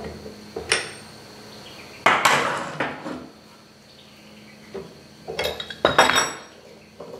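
Heavy steel hand tools clanking and clinking as they are handled and set down beside a Dana 60 axle housing: a few sharp metallic clanks that ring on, the loudest about two seconds in and two more just before six seconds.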